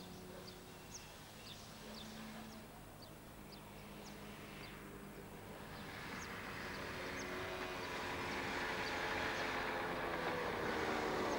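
Birds chirping, then a motorcycle engine growing steadily louder as it approaches over the second half.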